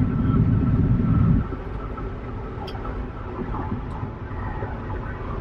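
Steady in-flight cabin noise of a Boeing 787 airliner, heard in the lavatory. A heavy low rumble drops off abruptly about a second and a half in, leaving a quieter even hum with a few faint clicks.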